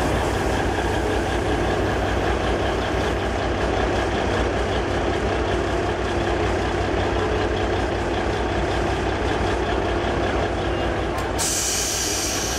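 Diesel multiple unit train moving slowly alongside the platform, its diesel engines running with a steady low rumble. A sudden hiss, like released air, starts near the end.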